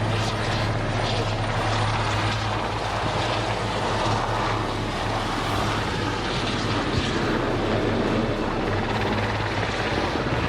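Military helicopter in flight, its rotor and turbine engines making a steady, continuous low hum.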